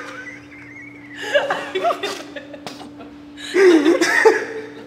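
Two people chuckling and laughing in short bursts, about a second in and again more loudly near the end, over a steady low hum.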